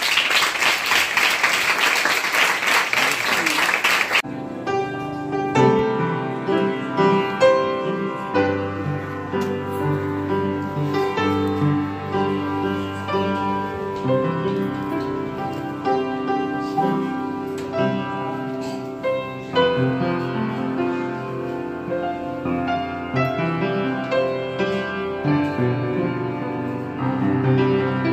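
An audience applauds for about four seconds. Then an upright piano is played solo: a melody over held bass notes.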